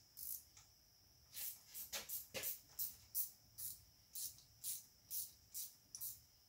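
10 mm wrench turning a bolt and nylon lock nut on a motorcycle light-bar bracket: a steady run of short clicks, about two a second, as the nut is snugged down.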